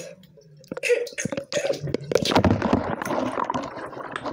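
Bathwater splashing and gurgling as toys are moved through it, a dense irregular run of small splashes and drips starting about three-quarters of a second in.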